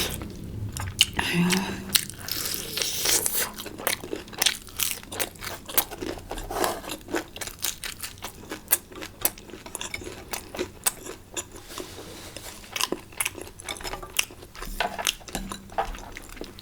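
Close-miked eating sounds: chewing and biting food, a steady run of small clicks and crunches.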